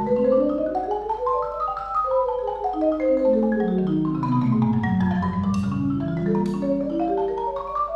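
Concert marimba played in fast mallet runs: the notes climb to the high bars, sweep down to the low bass bars about five seconds in, then climb again.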